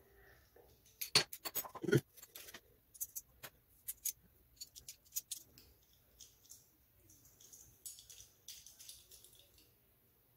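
Sharp metal clicks and taps as a double-edge blade is loaded into a chrome-plated three-piece safety razor, its parts handled and fitted together. The loudest run of clicks comes about a second in, followed by scattered lighter ticks.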